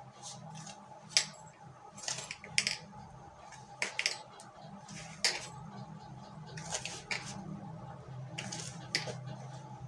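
Thin metal bangles on a wrist clinking in scattered sharp clicks, about eight in all, as a hand mixes dry flour in a plastic bowl, over a steady low hum.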